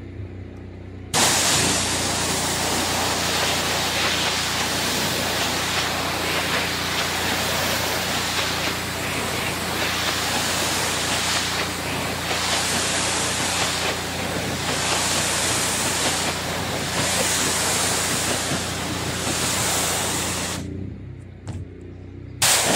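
High-pressure water jet from a pressure-washer wand spraying onto solar panel glass: a loud steady hiss that starts about a second in and swells and eases in regular waves as the jet sweeps across the panels. It stops briefly near the end, then starts again. A steady low hum runs underneath.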